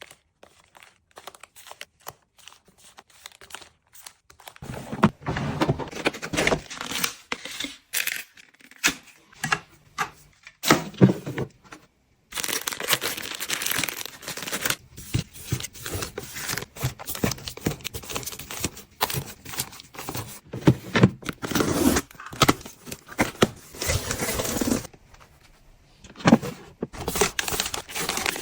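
Packaging being handled close up: crinkling, rustling and tearing, with sharp clicks and light knocks. It is faint for the first few seconds, then comes in long dense stretches with a short break, and there is a quieter gap near the end.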